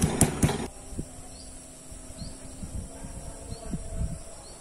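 Stone pestle knocking and grinding chillies in a stone mortar, three sharp knocks, cut off abruptly under a second in. Then quiet outdoor ambience with a faint high chirp repeating about once a second.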